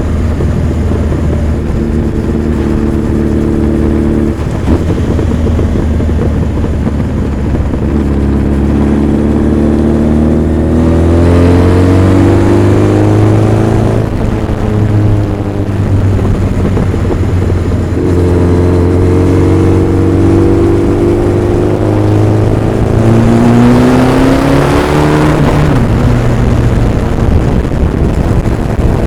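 Honda CB1300 Super Bol d'Or's inline four-cylinder engine and exhaust under way on the road. It runs steadily at first, then twice climbs in pitch under acceleration, each climb ending in a sudden drop.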